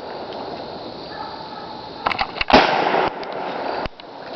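A single 12-gauge shotgun shot about two and a half seconds in, its report trailing off over about half a second. A few sharp clicks come just before the shot and another about a second after it.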